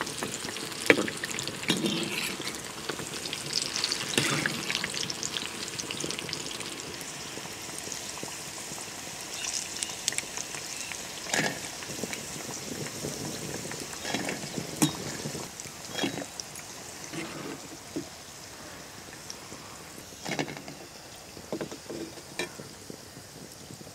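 Sweet corn pakodi fritters deep-frying in hot oil in a clay pot, with a steady sizzle and crackle that grows quieter as the fritters cook and the bubbling settles. A slotted metal spoon stirs them and knocks sharply against the pot a few times.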